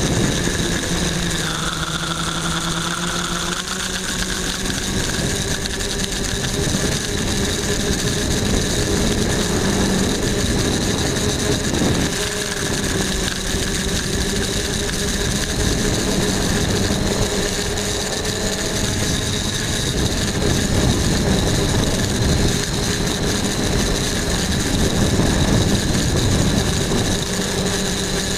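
Quadcopter's electric motors and propellers whining steadily as heard from its onboard camera, several tones in the drone's hum shifting pitch with the throttle, most noticeably about a second and a half in.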